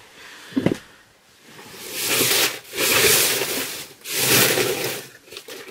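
Rustling of clothing and packaging being handled, in three long swishes, after a soft knock about half a second in.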